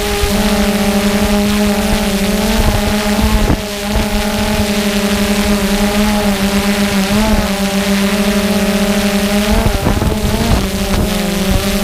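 Quadcopter drone's propellers humming at a steady pitch, wavering slightly now and then as it adjusts its flight. A low rumble runs underneath and grows stronger about ten seconds in.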